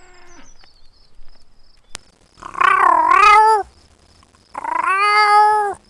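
Domestic cat meowing twice. The first meow, about two and a half seconds in, wavers in pitch; the second is longer and dips at its end. A sharp click comes just before the first meow.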